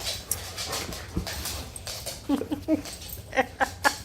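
Dogs whimpering in a run of short, high, repeated cries from a little past halfway, the excited whining of dogs greeting their owner, over soft rustling in the first half.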